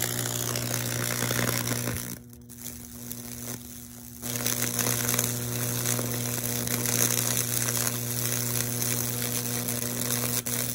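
Microwave-oven-transformer Lichtenberg wood burner running, with a steady mains hum under the crackling sizzle of high-voltage current arcing and burning through wet wood at the nail electrodes. The crackle weakens about two seconds in, then comes back strongly about four seconds in and holds.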